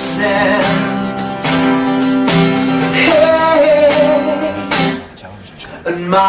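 Background song with guitar and a held singing note, dropping briefly quiet about five seconds in.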